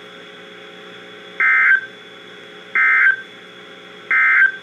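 NOAA Weather Radio EAS/SAME digital data bursts: three short, identical buzzy data tones about a second and a half apart, the end-of-message code that closes the alert. A steady receiver hiss and hum lies between the bursts.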